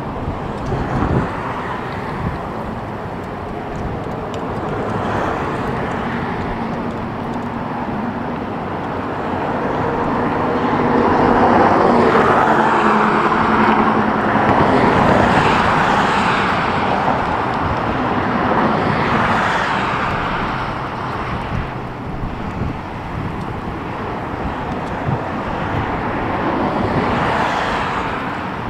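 Jet airliner's engines passing: a broad rush that slowly builds to a peak about halfway through, then fades, with a smaller swell near the end.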